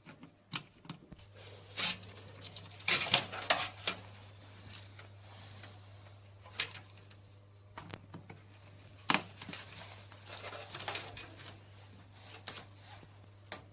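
Handling noises: irregular clicks, knocks and short rustles, loudest about three seconds and nine seconds in, over a low steady hum that starts about a second in.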